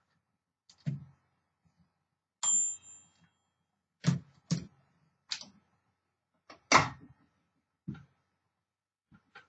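1957 Olympia SM3 DeLuxe manual typewriter being worked: a bell ding about two and a half seconds in, among about seven single, widely spaced mechanical clacks and thunks, the loudest near the end.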